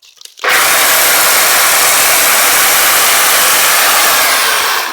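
Chainsaw starting up suddenly about half a second in and running at full speed, cutting through a thick tree branch, with a high steady whine; near the end the whine falls and the sound drops off as the saw slows.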